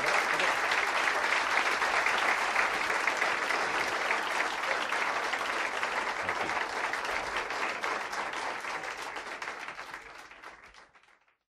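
Stand-up comedy audience applauding, dense clapping that fades out over the last few seconds to silence.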